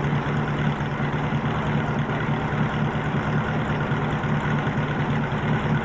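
A customized van's engine running steadily at low revs, loud and close, with an even, unchanging pitch.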